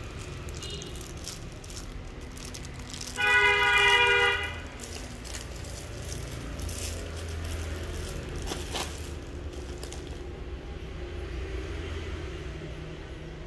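Plastic packaging crinkling and rustling as a cable lug is unwrapped from its bag and handled. About three seconds in, a loud, steady horn-like tone sounds for just over a second.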